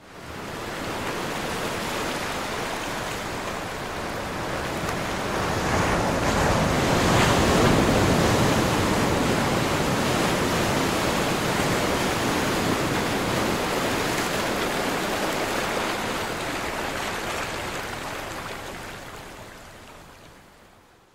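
Sea surf: a steady hiss of waves that swells to its loudest about seven to eight seconds in, then fades out over the last few seconds.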